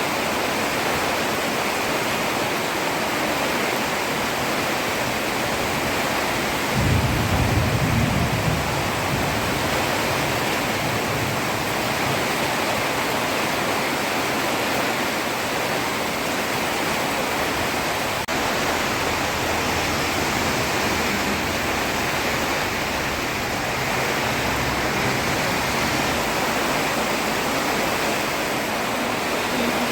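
Heavy rain falling steadily on a road, an even hiss. A low rumble rises briefly about seven seconds in and fades over about two seconds.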